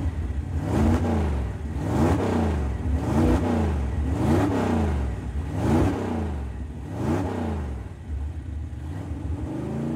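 An engine revved up and down over and over, about once every second and a half, over a steady low hum.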